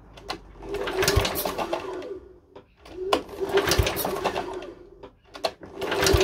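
Lawnmower recoil starter rope pulled repeatedly, about two seconds per pull, the engine turning over without firing: a compression test with a gauge in the spark-plug hole. Two pulls, and a third begins near the end. The reading comes out at only about 2 bar, low compression.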